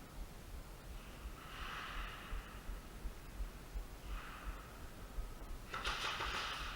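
A person breathing close to the microphone: two soft breaths, then a louder, longer one starting near the end.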